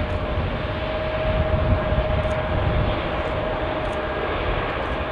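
Antonov An-225 Mriya's six turbofan engines running as the aircraft taxis and turns on the runway: a steady rush of engine noise with a steady mid-pitched whine through it.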